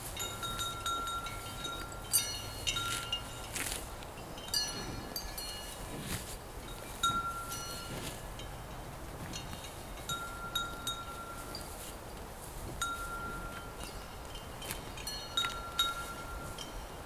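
Cowbells on a herd of grazing cows, clanking and ringing irregularly as the animals move, sometimes several strikes close together and sometimes a lone ringing note.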